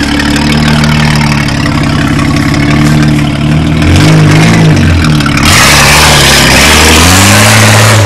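Nissan Patrol off-roader's engine revving hard under load in mud, its pitch rising and falling again and again. About five and a half seconds in, a loud rushing noise joins as the truck comes right up beside the microphone.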